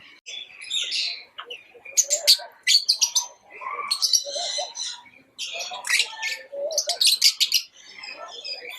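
Pet lovebirds chirping: rapid high-pitched chirps and chatter in bursts, with short pauses between them.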